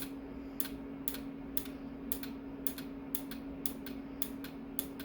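A 409 automotive relay clicking repeatedly on a bench test as its coil is energised, about two to three sharp clicks a second, with a steady low hum underneath.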